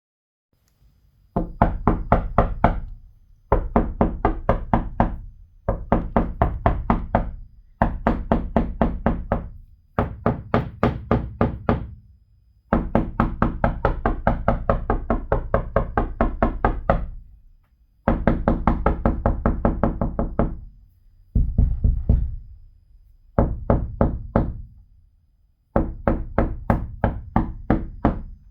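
Rapid knocking on a window pane, delivered in repeated bursts of quick raps, several a second, separated by short pauses. One longer run of knocking falls near the middle.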